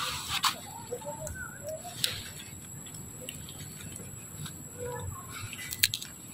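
Birds calling in the forest with short, soft, wavering notes. A few sharp clicks come through, with a cluster near the end as a long-tailed macaque cracks peanut shells.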